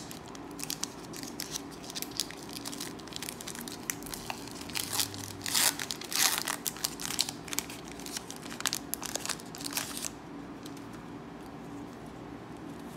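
Foil wrapper of a Pokémon booster pack crinkling and tearing as it is pulled open by hand, in irregular bursts of crackle that die away about ten seconds in.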